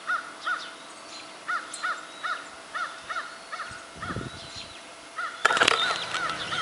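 A bird calling over and over in short, evenly shaped caw-like notes, about two to three a second. A louder burst of rustling noise breaks in a little after five seconds in.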